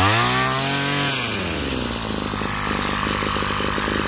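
Small 24cc two-stroke brush cutter engine running. It revs up in the first second, then drops back to a steady idle, with its idle set a little low.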